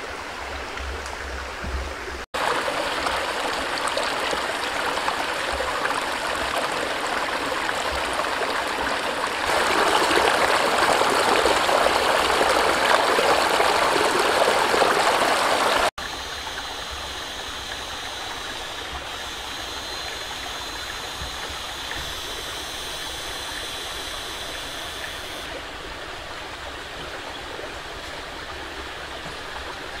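Steady rush of running water, as of a forest stream, growing louder in steps through the first half and dropping back after a sudden break near the middle. In the second half a thin, steady, high-pitched tone sits on top of it.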